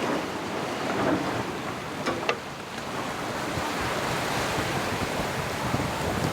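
Sea waves washing and wind buffeting the microphone aboard a sailing yacht at sea: a steady rushing that swells a little in the middle, with two brief sharp sounds about two seconds in.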